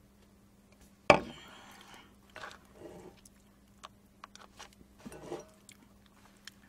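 A plastic cup set down on a wooden table with one sharp knock about a second in, then chopsticks clicking against the noodle bowl and chewing of noodles.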